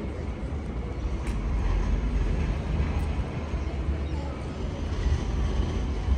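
Steady city street noise with a heavy low rumble, and a couple of faint clicks.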